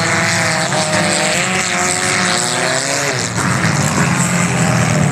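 Junk cars racing on a dirt track, their engines revving hard. One engine's pitch climbs and wavers, then drops sharply about three seconds in.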